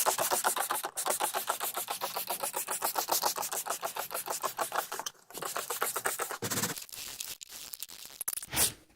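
Stiff scrub brush scrubbing carpet in fast back-and-forth strokes, several a second. It breaks off briefly about five seconds in, and the strokes are lighter near the end.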